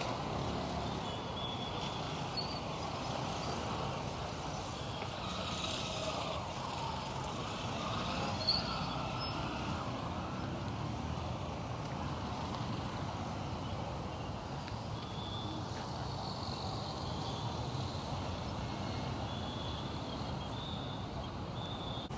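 Steady city road traffic of motorcycles and cars going by, with short high beeps or chirps now and then and a brief sharp click about eight seconds in.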